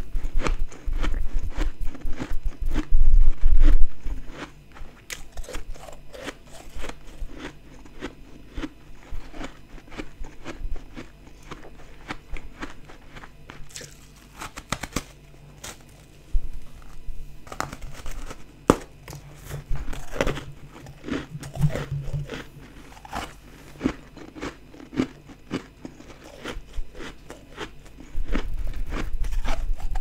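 Close-up biting and chewing of soft, frosty ice chunks: many small crunches and crackles, with heavier, louder crunching at the start and again near the end.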